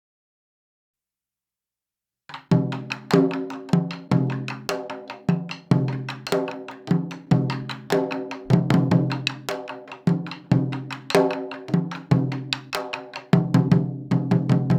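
Taiko drums played in a fast, driving rhythm, coming in about two seconds in after a silence: sharp strikes over the ringing, low drum tones.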